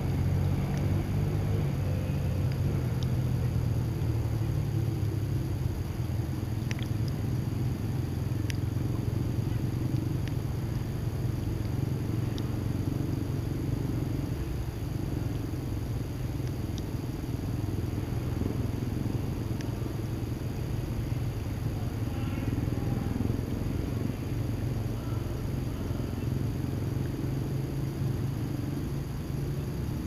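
Lake water lapping the shore under a steady low rumble, with a few faint ticks scattered through it.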